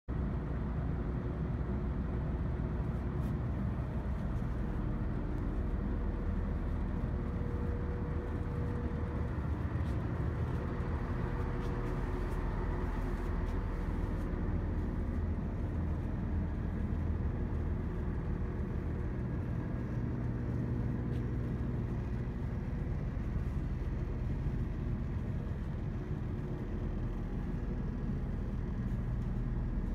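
Steady low rumble and hum of a standing Class 170 diesel multiple unit with its engines idling, a few faint steady tones running through it.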